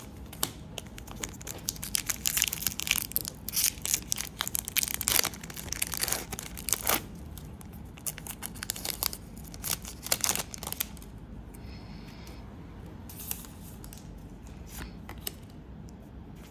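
A 2022-23 Panini NBA Hoops trading-card pack wrapper being torn open and crinkled, a dense run of tearing and crackling for about ten seconds. After that it goes quieter, with a few light clicks and rustles as the cards are handled.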